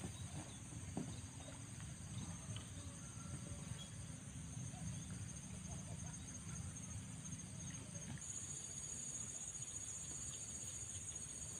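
Chorus of insects making a steady, high-pitched pulsing trill, with another insect joining in more loudly about eight seconds in, over a low steady rumble.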